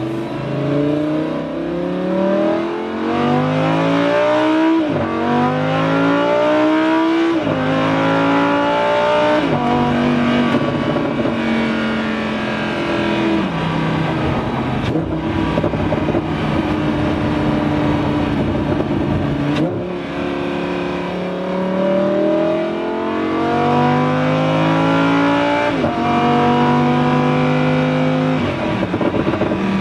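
2015 Lamborghini Huracán LP610-4's V10 with a Fabspeed supersport exhaust, heard from inside the cabin under hard acceleration. The engine note climbs in several pulls, each ending in a sudden drop at an upshift, with steadier stretches of cruising in between.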